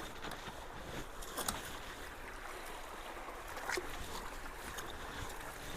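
Creek water flowing steadily into a partly cleared culvert, with a couple of faint clicks from debris being moved.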